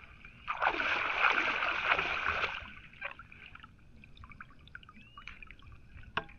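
Water splashing and pouring off a collapsible mesh shrimp trap as it is hauled up out of a river, for about two seconds, then falling to light dripping with a sharp click near the end.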